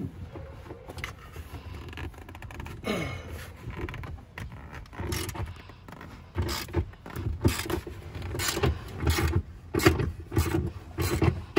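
Half-inch drive ratchet undoing a rear seat-mounting bolt in a car, its clicks and metal scrapes coming in repeated strokes, about one a second from the middle on.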